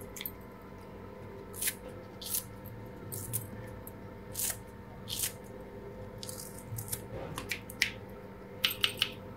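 Green chillies being cut into a bowl of mashed potato: a string of short, crisp snips at irregular intervals, about one a second and coming quicker near the end, over a faint steady hum.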